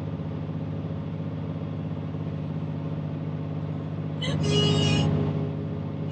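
Heavily loaded dump truck's diesel engine running under load in the cab, a steady low drone. About four seconds in, a louder rush of noise with a high whistle lasts for under a second.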